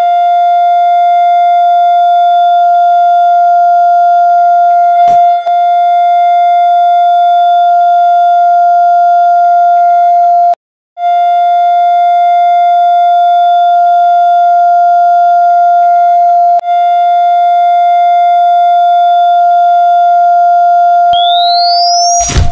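Patient monitor sounding a continuous flatline alarm, one steady high tone that breaks off for a moment near the middle: the sign of a patient in cardiac arrest. Near the end a defibrillator's charging whine rises over about a second, followed by a loud burst of noise right at the end.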